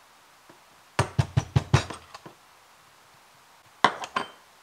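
A quick run of about six knocks, about a second in, as the espresso portafilter with its dosing funnel is tapped to settle the freshly dumped coffee grounds. Near the end come two or three sharp metallic clinks.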